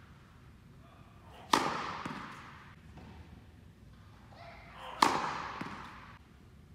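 Tennis racket striking the ball on the serve, twice, about three and a half seconds apart; each sharp hit rings on in a long echo off the hall of an indoor court.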